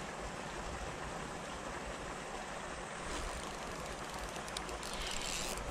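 Steady outdoor rushing noise with a low rumble underneath. Near the end come a few short clicks and a brief rustle.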